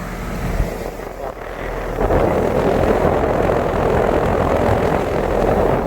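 Rheem outdoor air-conditioning condensing unit running: a steady fan rush over a low compressor hum, which gets noticeably louder about two seconds in.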